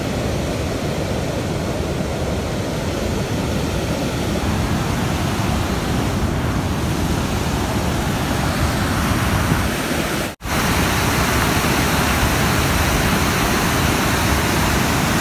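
River water pouring over a low dam: a steady, loud rushing noise, with one brief dropout about ten seconds in.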